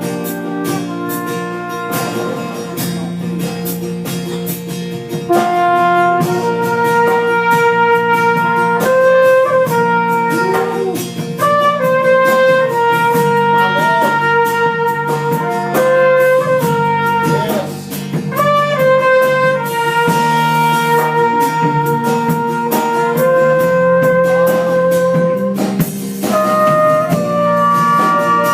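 Trumpet playing a slow melody of long held notes over an instrumental accompaniment, louder from about five seconds in.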